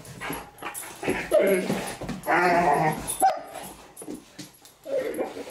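Great Danes vocalizing during rough play: a string of short calls, with two longer wavering ones about one and a half and two and a half seconds in, and a sharp click just after three seconds.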